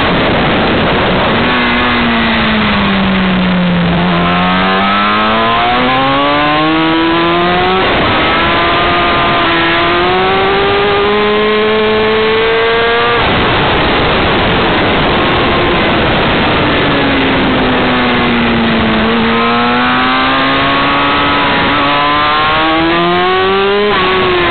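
Yamaha R6 sport bike's inline-four engine at racing speed under heavy wind rush on the mounted camera. The engine note falls as the bike slows for a bend, then climbs hard through the gears with shift breaks. Midway it drops again for the next bend and climbs once more, with another shift near the end.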